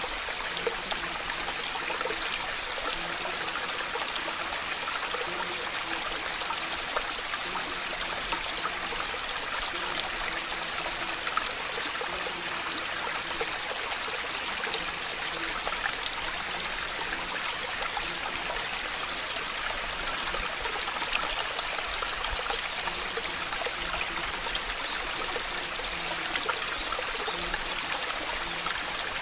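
Steady water ambience, an even hiss of streaming or falling water with fine patter, unbroken throughout, with a faint wavering low hum beneath it.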